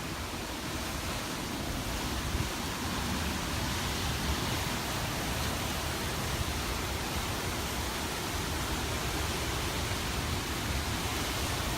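Hurricane Irma's wind blowing in a steady, even rush of noise, without gusts or breaks.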